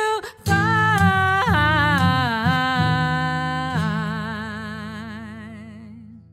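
Closing bars of a song: a sung voice moves through a few notes, then ends on a long held note with wide vibrato over a steady low accompaniment. The sound fades away toward the end.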